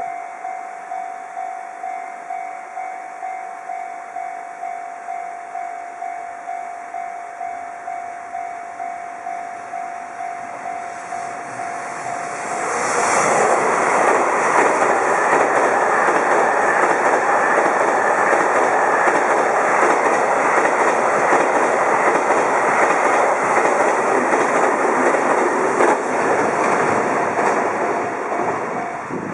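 A Japanese level-crossing warning bell dings about twice a second. About twelve seconds in, the JR Freight M250 Series Super Rail Cargo, an electric multiple-unit container train, passes at speed, its wheels clacking over the rail joints and drowning out the bell. The bell is heard again faintly as the train's noise fades near the end.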